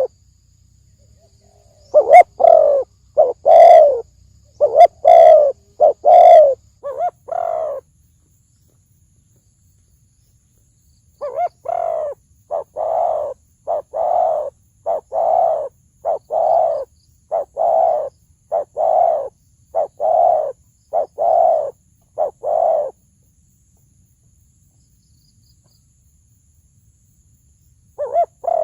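Spotted dove cooing loudly in deep, resonant notes: a quick run of coos for about six seconds, a pause, then a longer string of evenly repeated coos for about twelve seconds. After several seconds of silence, another coo starts near the end.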